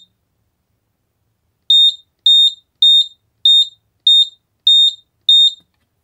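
Xiaomi Honeywell smoke detector beeping each time its button is pressed, as it is put into Zigbee pairing mode: seven short, high beeps in quick, even succession, starting a couple of seconds in.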